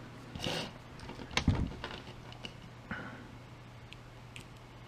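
Handling noise: a few scattered clicks and a dull knock about a second and a half in, over a faint steady low hum. The alarm siren is not sounding.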